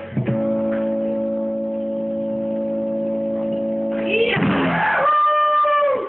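Live rock band with electric guitars ending a song: a chord rings out steadily for about four seconds. Then a short sliding sweep gives way to a single high held note, which cuts off suddenly.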